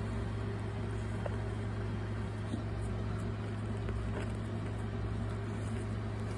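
Steady low machine hum, with a few faint scratches of fingers digging through damp soil.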